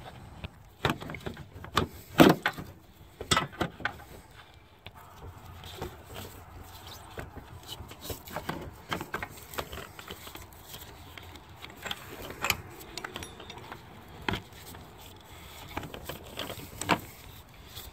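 Aluminium AC suction line and its metal fittings knocking and clinking against engine-bay parts as it is worked loose by hand. The knocks are irregular and scattered, the loudest about two seconds in.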